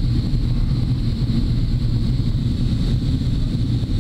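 Steady cabin noise inside a Boeing 777-200 in flight: a low rumble of engines and airflow with an even hiss above it.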